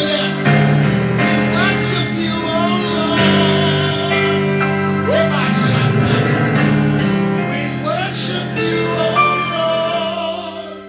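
Gospel worship music: long held chords with a voice singing sliding runs over them, fading away near the end.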